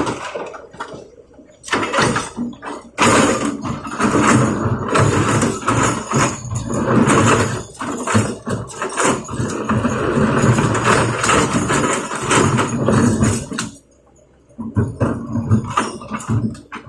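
Rocks clattering and tumbling in quick, irregular knocks as an excavator bucket loads them into a dump truck. The clatter stops abruptly near the end, then picks up again.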